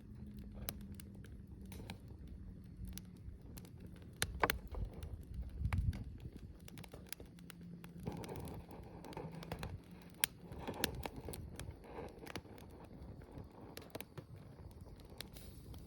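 Wood fire crackling, with irregular sharp pops and snaps over a low, steady rush. A louder low rumble comes about five seconds in.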